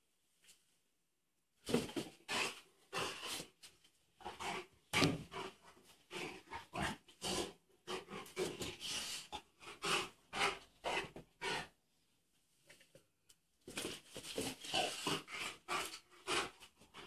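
A Rottweiler makes rapid, repeated breathy play noises while playing with a rubber toy. They start a couple of seconds in, pause for about two seconds near three-quarters of the way through, then resume.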